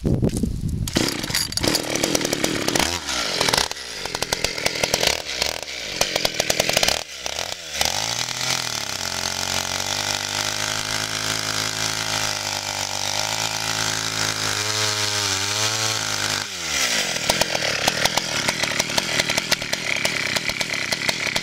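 Vintage Partner 350 two-stroke chainsaw of about 35cc, running. It is revved up and down in quick blips for the first several seconds, settles to a steady idle through the middle, then is revved high and held there near the end.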